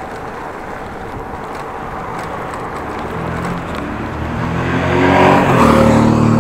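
Motorcycle engine approaching and accelerating hard, its note rising and growing louder through the second half, over steady wind noise on the microphone.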